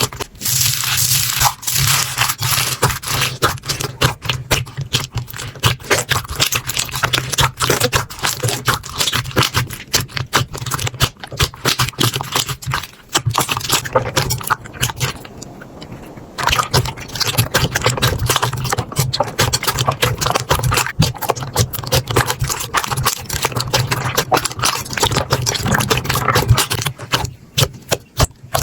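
Slime being squeezed and poked, giving a dense run of small crackling clicks and pops, with a quieter stretch a little past the middle.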